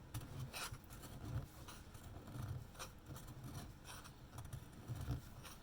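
Irregular small scraping and rubbing strokes on an espresso-machine boiler cap as rubber residue is cleaned off the lip where the O-ring seats, with soft handling bumps.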